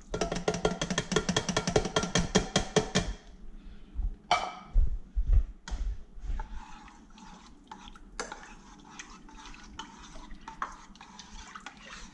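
Water glugging and dripping out of two upturned soup cans into a crock pot in rapid pulses for about three seconds. A few dull thumps follow, then a spoon stirring thick, clumpy cream of chicken soup in the crock pot with light scrapes and clicks.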